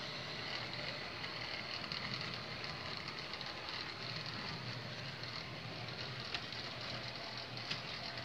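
HO scale model freight cars rolling past on the track behind a Life-Like 0-4-0 saddle tank switcher at low throttle: a steady rolling noise of small wheels on rails, with a few scattered clicks.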